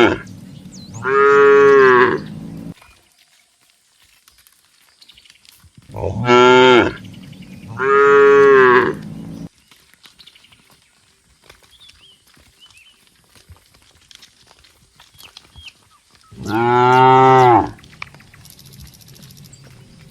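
Cattle mooing: long, drawn-out moos, one about a second in, two in quick succession around six to nine seconds in, and another near the end, with quiet gaps between.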